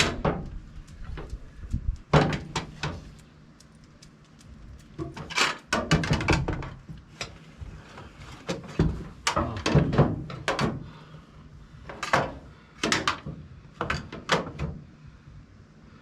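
Intermittent clunks and rattles of hand tools and metal hardware being handled against a pickup truck's frame, coming in several short clusters.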